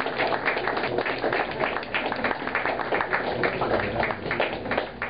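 Audience applauding: a dense patter of many hands clapping.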